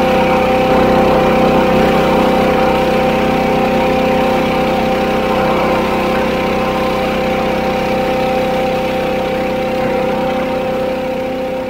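Monster Power Equipment 14 hp tractor-mounted leaf blower running, its gas engine and fan giving a steady whine over a rush of air as it blows leaves.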